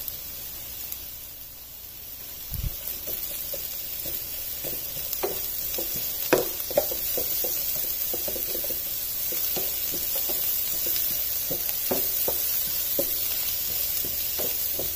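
Chopped onions and ginger-garlic paste sizzling in hot oil in a nonstick frying pan. After a couple of seconds a wooden spoon starts stirring, scraping and knocking against the pan again and again.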